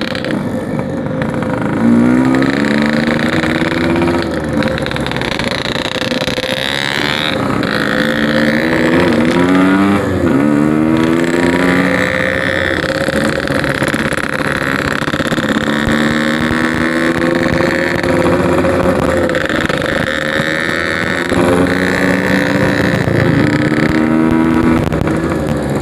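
Yamaha RX-King's 135cc single-cylinder two-stroke engine running through a Packing Power aftermarket exhaust while riding, its pitch rising in several runs of acceleration through the gears.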